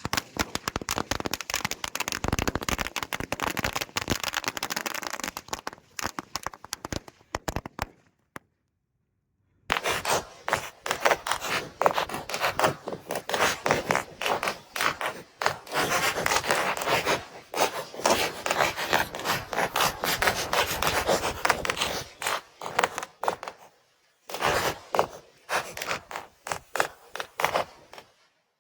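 A long string of Diwali firecrackers going off, a dense rapid crackle of many small bangs. It breaks off to total silence for about a second and a half after about 8 seconds, then crackles on, with a short lull near the end.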